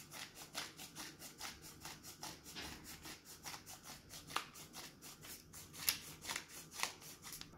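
Black pepper grinder being twisted: a faint, quick run of grinding clicks, about four or five a second, that stops near the end.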